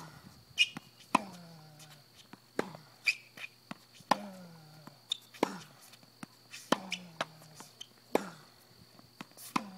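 Tennis ball struck by rackets in a steady rally on a hard court: sharp hits about every one and a half seconds, with softer ball bounces between.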